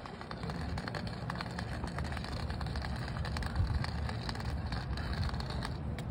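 Long white cane tip sweeping and tapping over brick paving, a run of small irregular clicks and scrapes over a low rumble.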